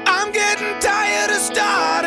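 Background music: steady held chords with a sliding melody line over them.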